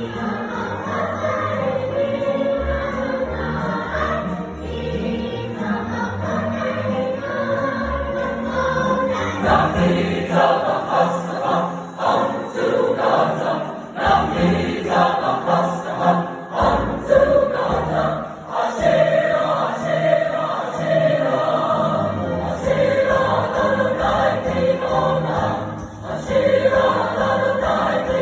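A choir singing a piece of music.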